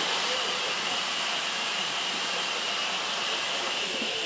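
Steady hiss and rumble of a steam-hauled train on the move, with no separate exhaust beats standing out.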